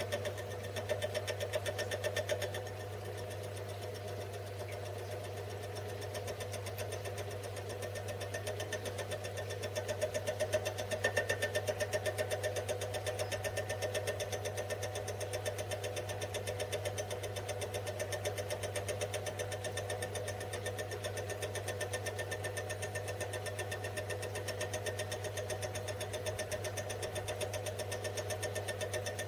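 Small bench lathe running steadily, spinning an out-of-balance aluminium casting in the chuck while the tool takes a light finishing cut. It makes a constant hum with a fast, even pulsing, a little louder twice as the cut bites.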